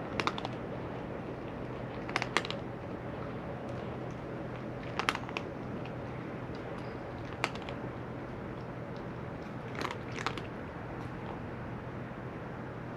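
A cat chewing food, with short clusters of sharp crunches every two to three seconds over a steady low hum.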